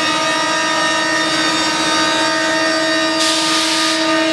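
CNC machining centre's router spindle running at a steady high speed, giving a constant whine. A short hiss breaks in about three seconds in and stops under a second later.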